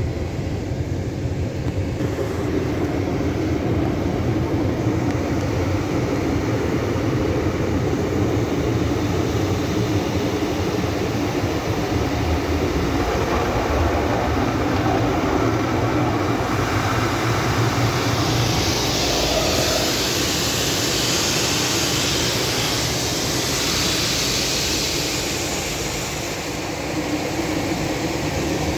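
Automatic car wash machinery running: a steady low rumble, with a louder hiss added between about 18 and 26 seconds in.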